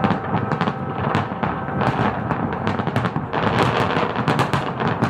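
Fireworks going off in a dense barrage: rapid cracks and pops over a continuous low rumble, growing denser and crackling brighter about three seconds in.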